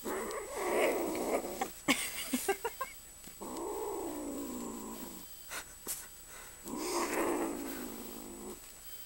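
Kitten growling low over a piece of food held in her mouth, guarding it: three long growls of about two seconds each, with a few short clicks between the first two.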